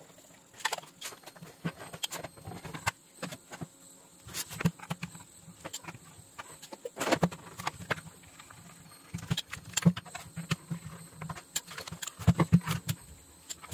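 Irregular light metal clicks, clinks and scrapes of a screwdriver backing out screws from a switching power supply's sheet-metal case and of the cover being handled and lifted off.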